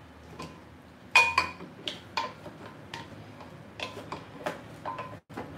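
A wooden spoon knocking against the inside of a glass blender jar in about a dozen irregular taps, each with a short glassy ring. The spoon is pushing loose pineapple chunks stuck around the blades, with the motor off.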